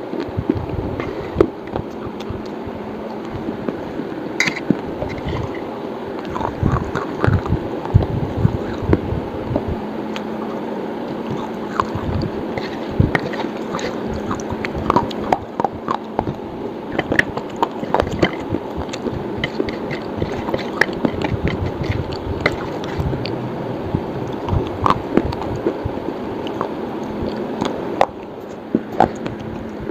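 Close-miked eating of roasted slate pencils and slate paste: irregular crisp crunches and chewing clicks over a steady low hum.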